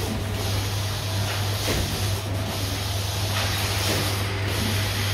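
Production-line machinery running, a steady hum under a constant hiss, with the hiss dipping briefly about every two seconds in a repeating cycle.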